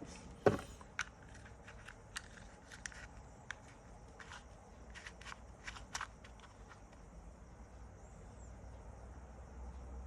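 Small clicks and taps of Toyota seatbelt retractor parts being handled and fitted, the loudest about half a second in, the rest scattered and thinning out after about six seconds.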